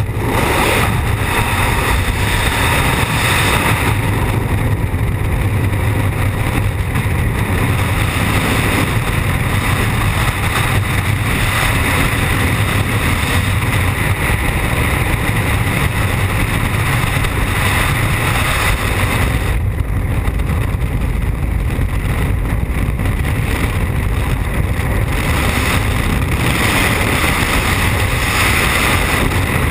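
Steady, loud rush of freefall wind buffeting the camera's microphone as a skydiver falls at speed.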